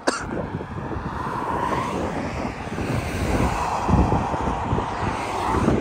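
Highway traffic passing at speed: a steady rush of tyre and engine noise that swells twice as vehicles go by, the second pass longer and louder.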